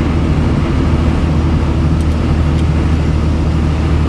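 The F650's 5.9-litre Cummins diesel running steadily at road speed, heard from inside the cab as a low, even drone with road noise.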